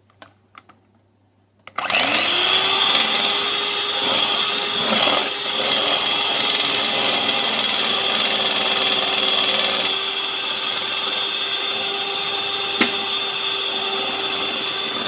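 Electric mixer switched on about two seconds in, spinning up quickly and then running at a steady pitch as it mixes the chocolate into the cake batter.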